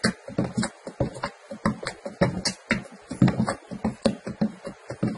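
Wooden spatula stirring liquid hand wash in a plastic bucket, knocking and scraping against the bucket's sides in a quick, irregular run of clicks and knocks.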